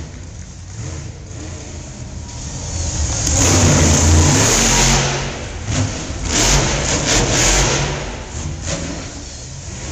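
Monster truck engine revving hard in two long surges, about three seconds in and again around six seconds in, idling lower between them.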